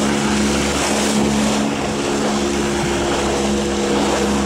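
Small motorboat's engine running at a steady speed as the boat moves over the water, with a constant rush of wind and water.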